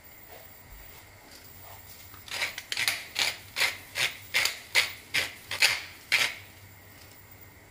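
Hand-held pepper mill grinding black pepper: about ten quick rasping twists in a steady rhythm, roughly two and a half a second, starting a couple of seconds in and stopping about a second before the end.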